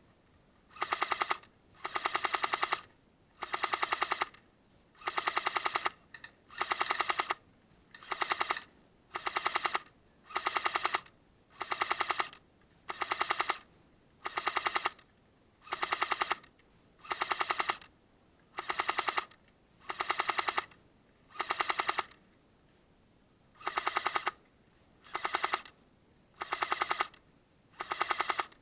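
Airsoft M60 support gun firing short bursts of rapid shots, about one burst every one and a half seconds, with one longer pause near the end.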